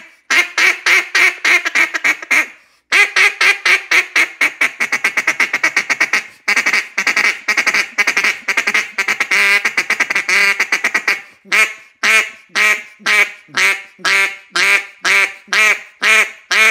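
Rim-cut RNT Mondo cutdown duck call blown by hand in a run of quacks, fast chatter and a rolling feed call, with a brief break about two and a half seconds in. From about eleven seconds in, evenly spaced single quacks follow at about three a second.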